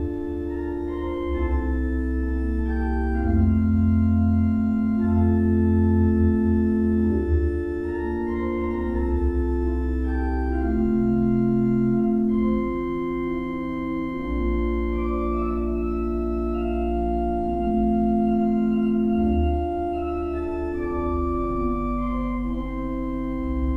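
Church organ playing slow, sustained chords over deep held bass notes, the chords changing every second or two.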